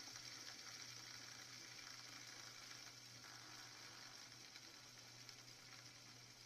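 Faint whir of a fidget spinner's bearing as it spins down after a flick, slowly fading, under a low steady hum.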